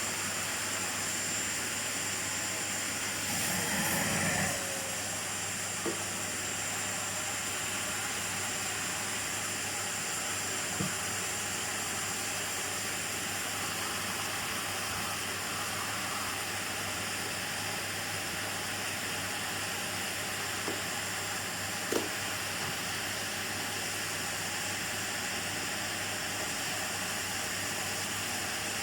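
Miele vacuum cleaner running steadily: a constant rushing airflow with a thin high whine. About four seconds in it briefly swells louder, and a few faint ticks come later, the clearest about 22 seconds in.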